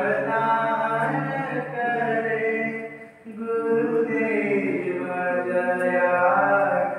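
A Hindu devotional bhajan sung as a chant during evening aarti, with long held notes and a short breath pause about three seconds in.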